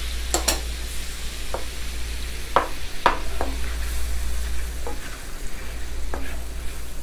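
Butter and brown sugar sauce sizzling in a skillet as banana slices are stirred through it with a slotted spatula. The spatula knocks and scrapes against the pan about seven times.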